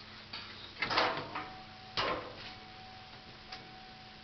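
A light click, then two louder knocks about a second apart, each trailing off, and a small click near the end. A faint steady high tone starts about a second in, over a low hum.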